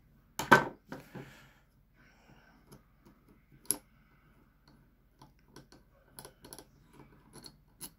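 Small metal clicks and taps from a revolver's steel frame and parts being handled. There is a louder knock about half a second in, another about a second in, and a sharp click near four seconds, then light clicks keep coming.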